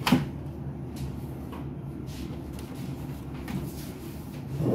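Handling of an HP LaserJet Pro M501 laser printer's plastic casing: a sharp knock just after the start, then a steady low hum, and near the end a louder plastic clunk and rubbing as the printer's front door is pulled open.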